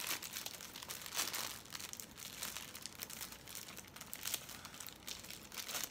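Plastic packaging crinkling and rustling in irregular bursts as a toy figure is unwrapped by hand.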